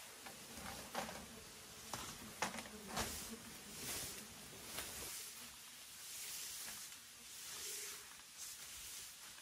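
Faint rustling with a few light, sharp knocks.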